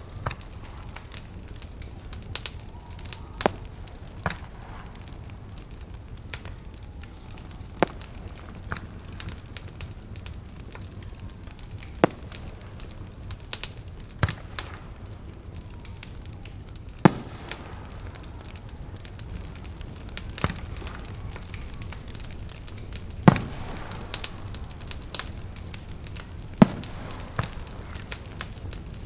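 Wood fire crackling, with sharp pops at irregular intervals a few seconds apart over a low steady hum.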